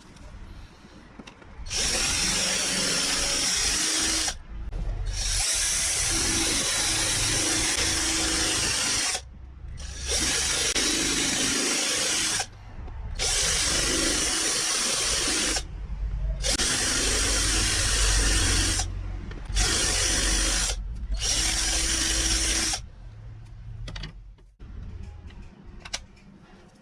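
A small electric power tool runs in seven bursts of a few seconds each, stopping briefly between them. Near the end it falls quiet, leaving only light clicks and knocks of handling.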